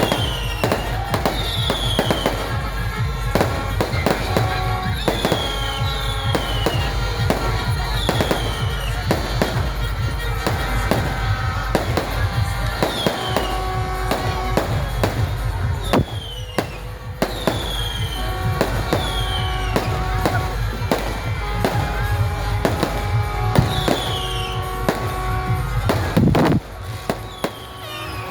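Fireworks display: a dense, continuous barrage of bangs and crackles over a deep rumble, with short high whistles falling in pitch every second or two. Music plays underneath.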